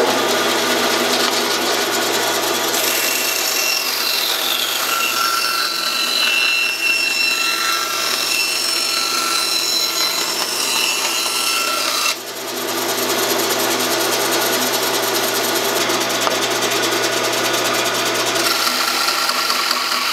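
1948 Delta band saw, driven by a 1 HP Dayton motor, running with a 3/4-inch 3 TPI Timberwolf blade cutting through wood: a steady motor hum under the rasping of the blade in the cut. There is a short break about twelve seconds in, and then a second cut goes on.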